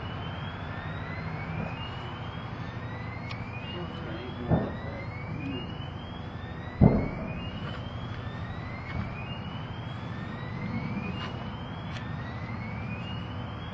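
A rising electronic alarm tone repeats about once every second and a half over a steady engine rumble. Two sudden heavy thumps break in, the second and louder about seven seconds in.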